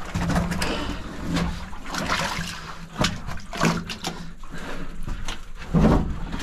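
Shallow water splashing and sloshing in irregular surges as people wade and crawl through a flooded tunnel, their feet and bodies churning water over a muddy floor.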